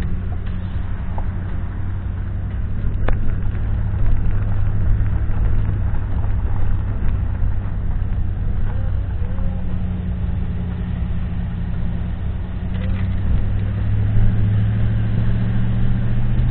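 A car being driven on a wet road, heard from inside the cabin: steady engine hum and tyre noise, with one sharp click about three seconds in.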